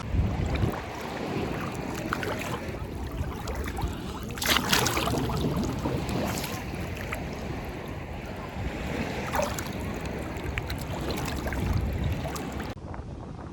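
Ocean surf washing on a beach as a steady rush, with a louder wave surging about four and a half seconds in, and wind rumbling on the microphone.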